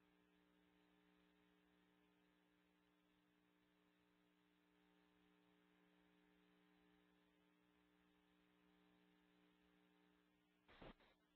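Near silence: a faint, steady electrical hum, with a brief click near the end.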